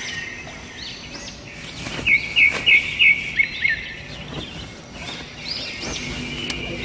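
Birds chirping and singing, with a quick run of about eight bright repeated notes about two seconds in.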